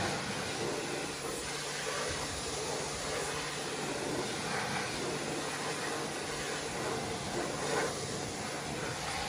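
Pressure washer jet spraying water onto a foamed wheel trim and tyre, a steady hiss, rinsing off the wheel cleaner after brushing.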